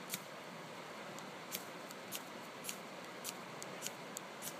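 A fire-steel (ferrocerium rod) being struck with a knife blade over dry bracken tinder: about ten short, sharp scrapes, roughly two a second, as sparks are thrown to try to light the tinder.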